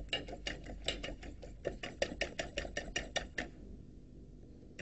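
Fork beating eggs in a stainless steel bowl: quick, even clinks of the tines against the metal, about six a second, stopping about three and a half seconds in. The eggs are being beaten lightly until frothy.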